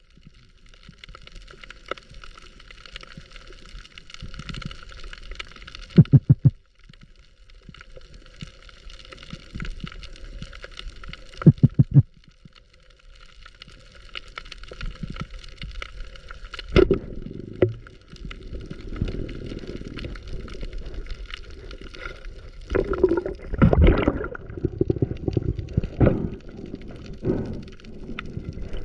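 Water sounds at a diving camera: a steady hiss with gurgling, and twice a short loud burst of rapid pulses. From about the middle on, louder irregular gurgling and sloshing.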